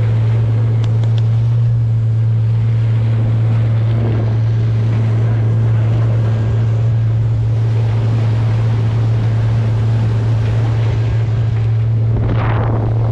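100 hp Suzuki four-stroke outboard running at a steady cruise: a constant low drone under the rush of water and wind as the boat moves. A brief louder hiss comes near the end.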